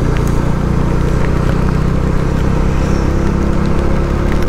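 Motorcycle engine running at a steady cruising speed, with an even rush of road and air noise over it.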